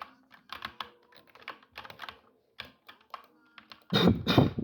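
Keys being typed on a computer keyboard, separate clacks a few per second, then a much louder, rapid flurry of strokes with a deeper thump near the end.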